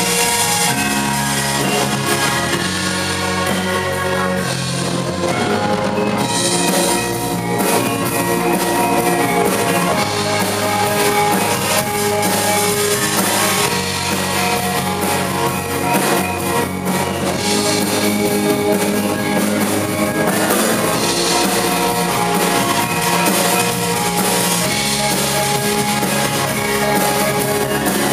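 Live fusion music: gamelan pot gongs and metallophones played together with a rock drum kit and electric bass guitar, at a steady, continuous level.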